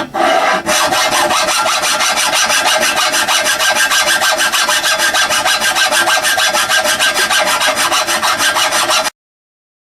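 Hand file rasping on cast iron in rapid, even strokes. The sound stops abruptly about nine seconds in.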